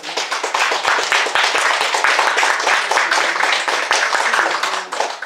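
Audience applauding at the end of a song, dense clapping that dies away near the end.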